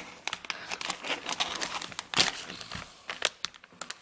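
Plastic blind bag of Mega Bloks Teenage Mutant Ninja Turtles figures crinkling and tearing as it is opened by hand: a string of irregular crackles, the sharpest about two seconds in.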